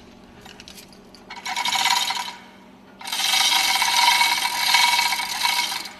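Metal-on-metal rasping and scraping as the threaded centre screw of a fuel-pump lifting tool is turned, in two stretches: a short one about a second in and a longer one from about halfway.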